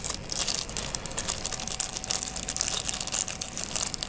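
Small clear plastic bag crinkling as hands handle and turn it, giving a quick, irregular run of crackles.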